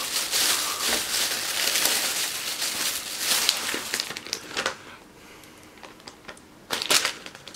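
Thin plastic shopping bag rustling and crinkling as it is handled and opened and things are pulled out of it. The rustling dies down after about four and a half seconds, and a short rustle comes near the end.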